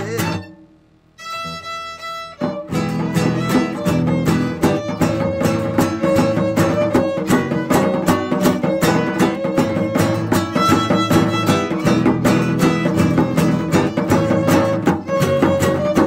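Background music: after a brief pause near the start, an instrumental piece begins with a held chord, then goes on with violin and guitar over a steady rhythmic beat.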